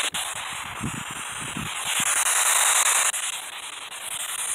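A steady hiss of noise, louder near the start and again from about two to three seconds in, with a few soft low thuds about a second in.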